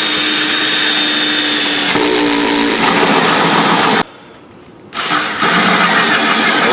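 Power drill spinning a small hole saw into wood: a steady motor whine that changes and loads up about two seconds in as the saw bites. It stops abruptly about four seconds in, then starts cutting again about a second later.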